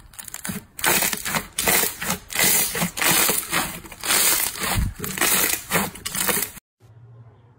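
Hands pressing and kneading a mound of fluffy blue slime: a run of loud squishing, crackling presses about two a second, which cuts off suddenly near the end, leaving a faint low hum.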